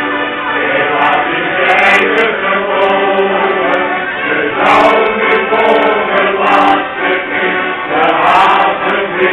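Male shanty choir singing, accompanied by accordions.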